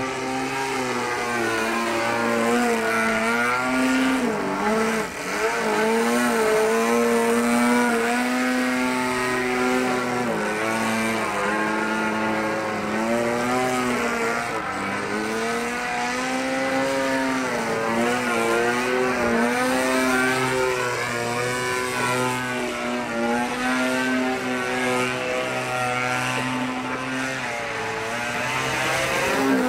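Gasoline engine of a radio-controlled aerobatic model airplane running in flight, its pitch rising and falling again and again as the throttle is worked through the manoeuvres.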